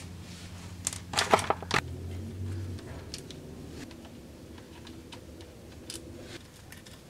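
Scattered small metallic clicks and taps from transmission oil pan bolts being unthreaded and handled, with a quick cluster of them a second or so in and a few single ticks later. A faint low hum underneath stops a little under three seconds in.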